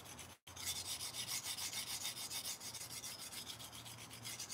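Steel knife blade stroked back and forth by hand on an extremely coarse sharpening stone, a rasping scrape of about four strokes a second. The stone is grinding away metal to rebuild a rounded-over tip. A momentary dropout in the audio comes about half a second in.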